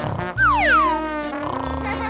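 Background children's music. About half a second in comes a cartoon sound effect: whistle-like tones sliding quickly down in pitch over about half a second.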